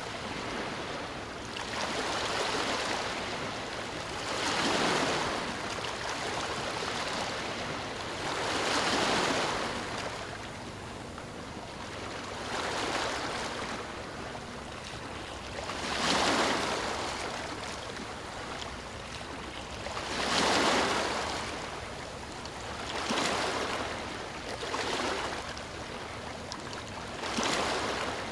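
Ocean waves breaking on a beach, surging and washing back in a steady rhythm, about one wave every four seconds.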